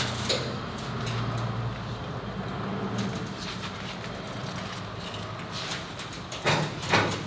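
McLaren P1 being pushed by hand along an aluminium car trailer: a low steady rumble of the car rolling on the trailer, with a few knocks and creaks, the loudest two close together near the end.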